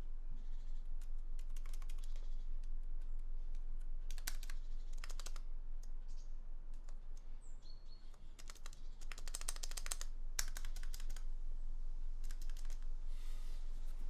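Keyboard stabilizer key being pressed repeatedly in quick clusters, clacking with each stroke, as it is tested after being lubed and refitted with washers. The owner finds it doesn't sound super good.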